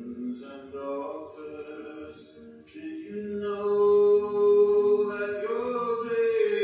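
A man singing a slow song into a microphone with long held notes, accompanying himself on acoustic guitar.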